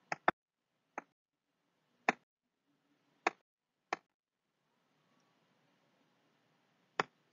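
Seven short, sharp clicks at uneven intervals over faint room hiss: a computer being clicked to skip through presentation slides.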